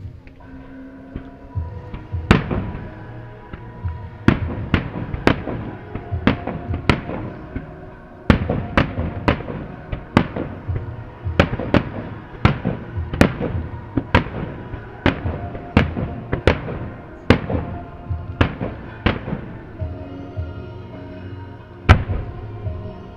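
Aerial firework shells bursting in rapid succession, sharp bangs about two a second, then a short pause and one loudest bang near the end. Music with sustained tones plays underneath.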